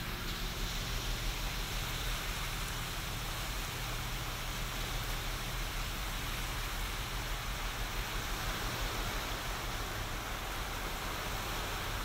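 Small ocean waves washing and breaking onto a sandy beach, a steady wash of surf without distinct crashes, with a steady low hum underneath.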